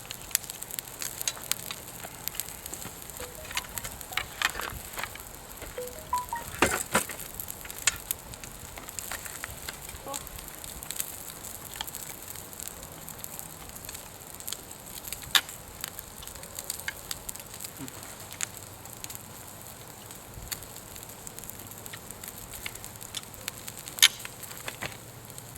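Firewood fire crackling, with irregular sharp pops over a steady hiss; a few pops stand out, the loudest near the end.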